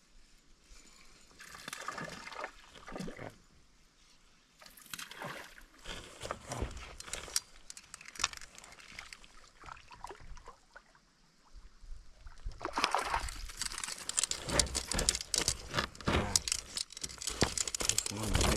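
Water trickling and sloshing against a kayak in irregular bursts, busier and louder over the last six seconds.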